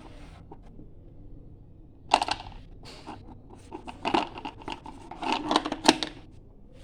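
Small plastic toys being handled: a few sharp clicks and clatters, with short scraping and rustling sounds as pieces are moved and put into a toy bag.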